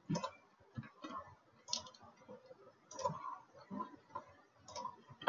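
Quiet, irregular clicks of a computer mouse and keyboard, about eight short clicks spaced unevenly over a few seconds.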